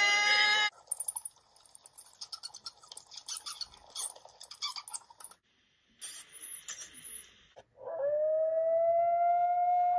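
A string of separate animal calls. A steady pitched call cuts off just under a second in. Then a quick run of high chirps, squeaks and clicks like bat calls lasts until about seven and a half seconds. Near the end a long canine howl begins, rising slightly and then held.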